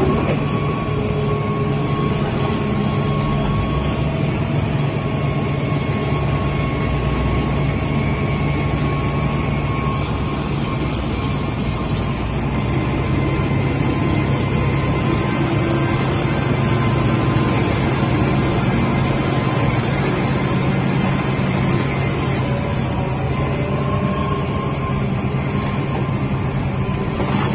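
Small excavator's diesel engine and hydraulics running steadily under load, with a low, even hum.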